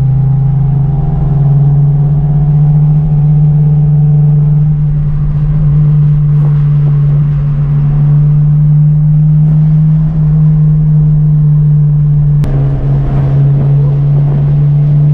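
Car engine and exhaust droning at a steady cruise, with a low rumble underneath. A single short click comes about twelve seconds in.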